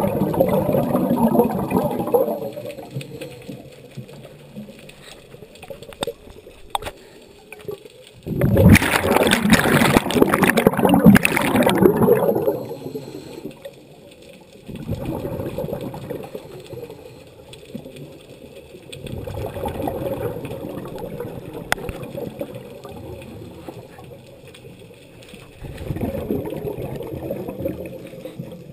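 Scuba diver breathing through a regulator: exhaled air bubbles out of the exhaust valve in gurgling bursts every few seconds, with quieter stretches between them. The longest and loudest burst comes a little under halfway through.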